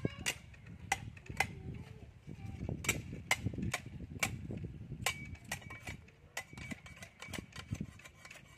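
Kitchen knife working on a fish as it is cleaned: irregular sharp knocks and clicks, about one or two a second.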